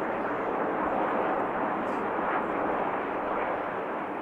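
Steady jet noise from Aermacchi MB-339 jet trainers and their Rolls-Royce Viper turbojet engines.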